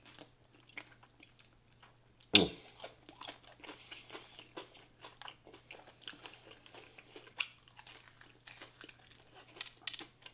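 Close-miked eating of crispy fried food: crunching bites and wet chewing, with one loud crunchy bite about two seconds in.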